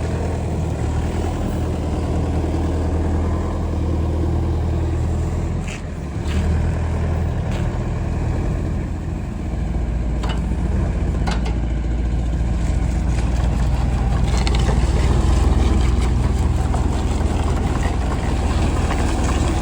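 Yanmar ViO80-U mini excavator's diesel engine running steadily, its note changing about halfway through, with a few sharp knocks.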